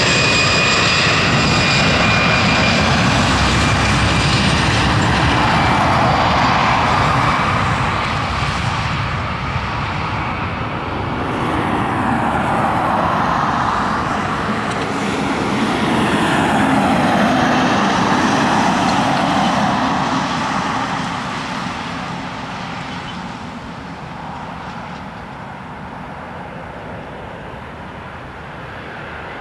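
Airbus A320's twin CFM56-5 turbofan engines at takeoff thrust: loud engine noise with a high fan whine as the jet rolls past close by. The sound then turns to a wavering, shifting rumble as the plane lifts off and climbs away, and fades over the last several seconds.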